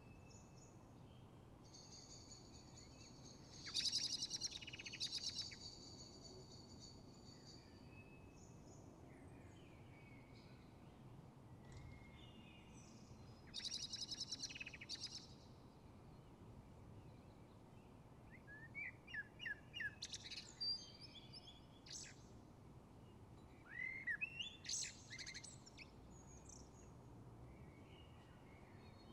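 Songbirds singing in separate bursts: a buzzy trill a few seconds in, a rapid rattling phrase around the middle, and runs of short chirps in the second half. A faint low hum lies underneath throughout.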